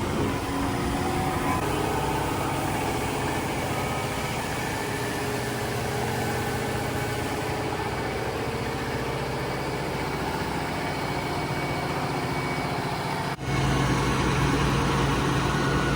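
Farm machinery engine running steadily during grain loading at harvest. About three-quarters of the way through, the sound cuts abruptly to a different, somewhat louder engine hum.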